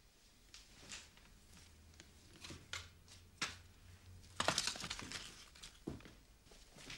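Faint rustling and small knocks as a bag and its contents are handled. There is a louder rustle about four and a half seconds in and a dull thud near the end.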